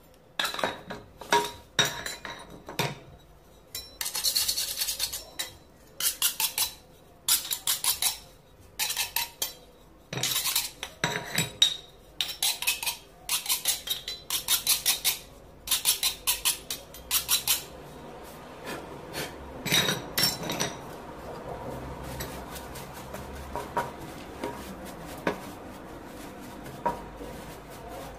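Metal hand scraper scraping and chipping old mortar out of the bed of a hexagonal terracotta floor tile, in quick runs of harsh strokes. Over the last third this gives way to a quieter, steady brushing as the loosened dust is swept out.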